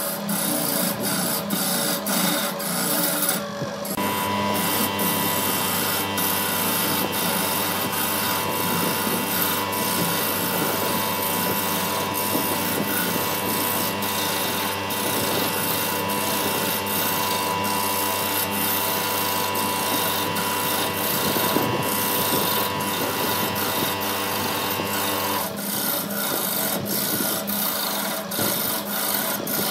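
Wood lathe turning a wooden vase blank while a hand-held turning tool scrapes and cuts the spinning wood, a steady rasping with many quick ticks. A steady hum comes in about four seconds in and stops about four seconds before the end.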